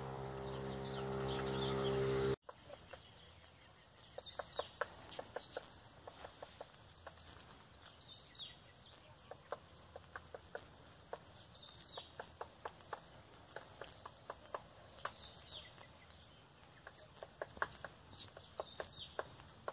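Music for about two seconds, cut off sharply, then birds calling outdoors: short falling chirps every few seconds over a steady high insect drone, with scattered light, irregular taps.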